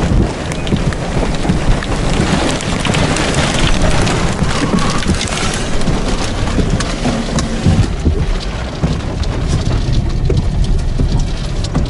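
Strong storm wind near a tornado buffeting the microphone, with rain pelting down and many sharp taps. From about eight seconds in, heard from inside the car, the hiss dulls and rain drums on the roof.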